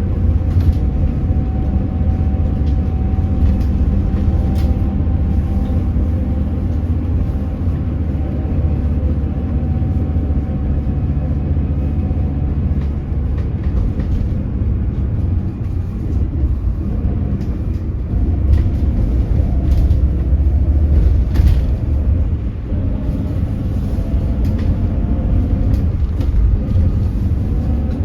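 Hyundai Elec City hydrogen fuel-cell bus running, a deep rumble with the electric drive motor's whine over it. The whine sinks slowly, then new whines rise again near the end. This is the motor noise that sounds abnormal for this bus.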